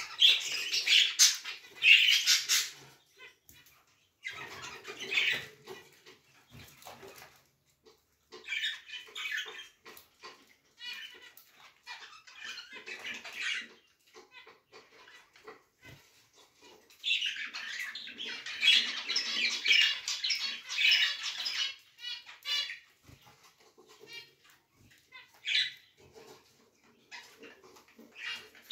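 Domestic canary singing: rapid trills and chirping phrases of a few seconds each, broken by short pauses, the longest phrase a little past the middle.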